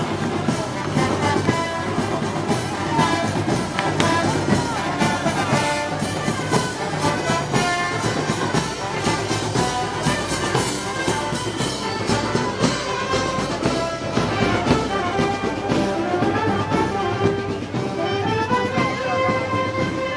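Brass band playing Moros y Cristianos festival music, with trumpets and trombones prominent.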